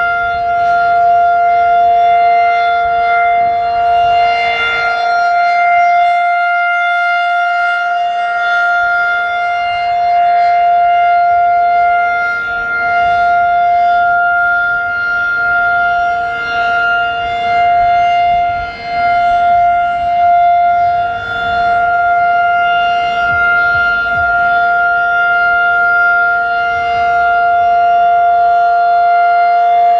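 Federal Signal 2001-DC outdoor warning siren sounding a steady Alert tone: two pitches held together as one unwavering chord, swelling and dipping slightly in volume. Wind rumbles on the microphone underneath.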